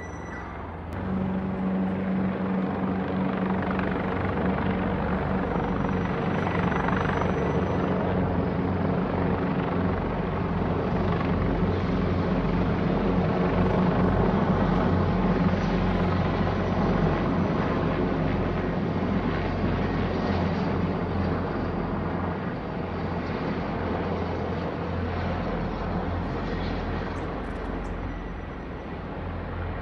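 Three military helicopters passing overhead in formation: a steady rotor and engine noise that rises about a second in, is loudest around the middle and eases off toward the end.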